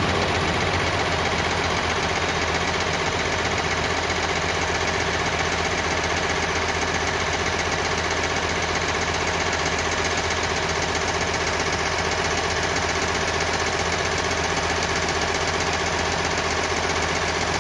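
C-130J Super Hercules's four turboprop engines at takeoff power during the takeoff run: a steady drone with a constant low hum.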